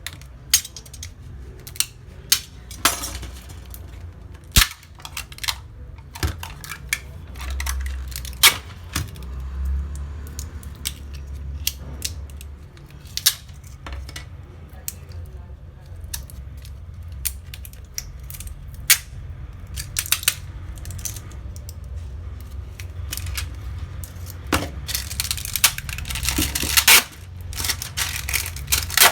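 Plastic casing of an HP laptop internal battery pack being pried open: irregular sharp clicks and snaps, coming thicker near the end, over a low rumble.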